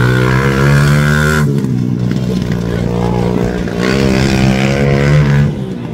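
Racing tricycle's motorcycle engine under hard throttle, dropping in pitch about a second and a half in, then revving back up and easing off again near the end.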